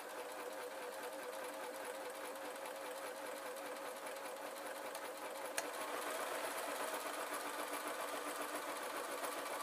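Electric Singer domestic sewing machine running continuously, stitching a long seam down the side of a knit sock. A single sharp click a little past halfway, and the machine runs a little louder and higher from about six seconds in.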